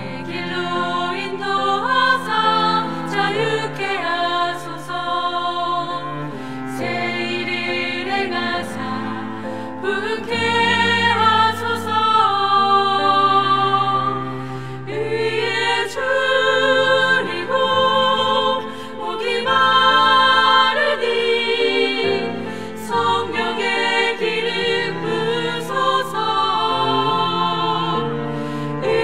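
Women's vocal ensemble singing a Korean worship song in harmony with vibrato, accompanied by a cello holding sustained low notes.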